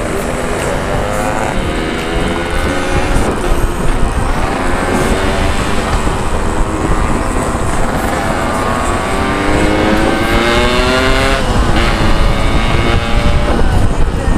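Yamaha RX-King's 135 cc two-stroke single accelerating hard under way, its pitch climbing and then dropping back at each gear change, with a big shift about three-quarters through. Wind rushes on the microphone beneath it.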